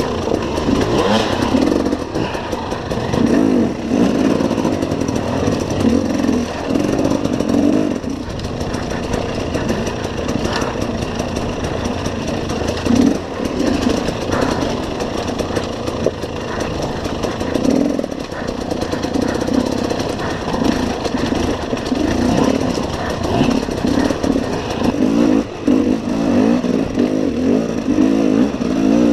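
KTM enduro motorcycle engine revving up and down as the throttle opens and closes over rough rocky trail.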